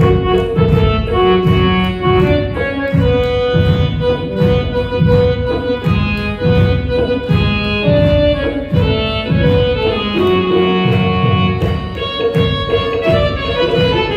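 Instrumental worship music: a Roland XPS-30 keyboard plays a held, organ-like melody over a steady beat struck on an electronic drum pad.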